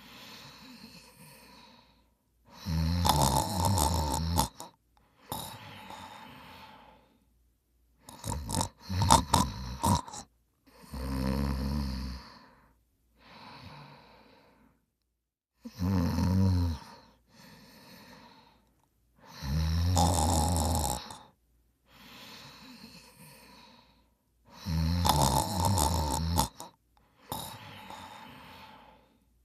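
A person snoring in a steady sleep rhythm: loud snores every few seconds, each a second or two long, with quieter breaths between them.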